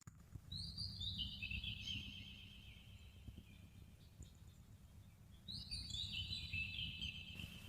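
Faint bird song: two descending, warbling phrases, each about two seconds long, the second starting about five and a half seconds in, over a low background rumble.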